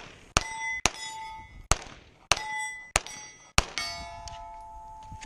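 Pistol shots at steel targets: six shots in quick succession over about three seconds, most followed by the short ring of a struck steel plate. After the last shot, the plate rings on in several tones.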